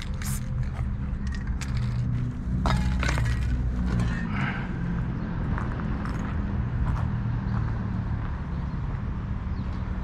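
Footsteps crunching over gravel and litter with scattered clinks, over a steady low rumble.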